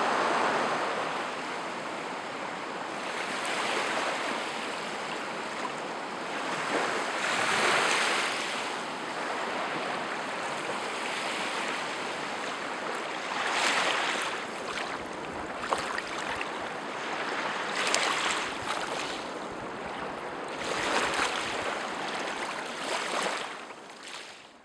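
Lake Superior waves breaking and washing up on the shore, a steady rush of water that surges louder every few seconds.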